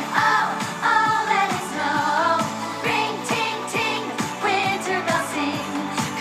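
Pop song with a singer's voice over a steady beat.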